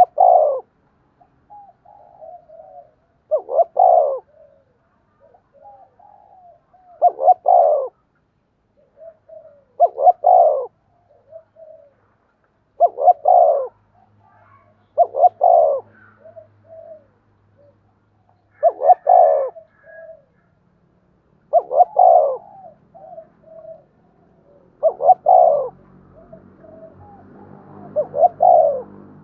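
Spotted dove cooing: a loud coo phrase about every three seconds, ten in all, with softer short notes between the phrases.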